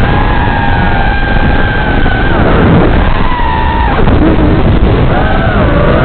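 FPV quadcopter's brushless motors whining over a loud, heavy rumble on the onboard camera's microphone. The whine holds steady, drops away near the middle and rises again near the end as the throttle changes.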